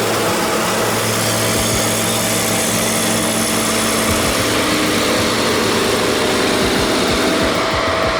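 An engine running steadily, with a constant whine over its hum.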